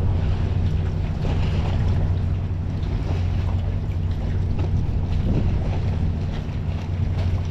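Boat engine idling with a steady low hum, with water lapping and wind on the microphone.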